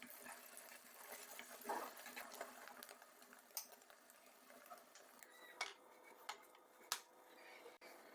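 Faint sizzle of egg frying in a pan: a soft, even crackling hiss, with a few sharp clicks scattered through.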